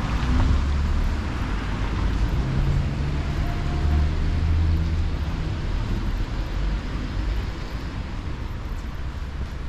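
Street traffic noise with a car engine hum that swells for a few seconds in the middle.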